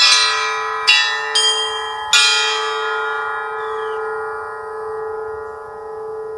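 Russian Orthodox church bells of a portable seven-bell belfry, 5 to 32 kg, struck four times in quick succession in the first two seconds of a festive peal. These are the last strokes: the bells then ring on and slowly fade, with the lowest bell's deep hum lasting longest.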